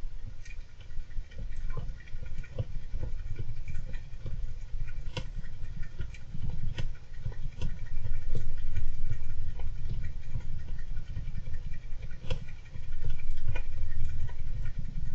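Golden hamster scuffling and scratching about, giving many small irregular clicks and patters. Beneath it runs a steady low rumble that swells twice.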